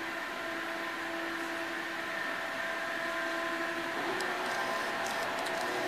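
STILL electric forklift running as it manoeuvres: a steady whine made of several tones, which shifts a little about four seconds in. A few light clicks follow near the end.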